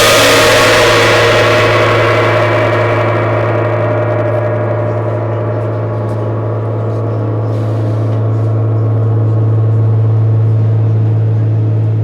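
Nepalese-made Tibetan gong ringing loudly after a single strike. Its bright high shimmer dies away over the first few seconds, leaving a deep steady hum with a few higher tones that swells again slightly past the middle.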